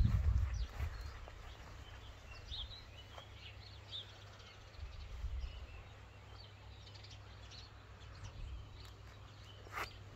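Small birds chirping in short, scattered calls, over a low rumble that is loudest in the first second. One sharp click comes near the end.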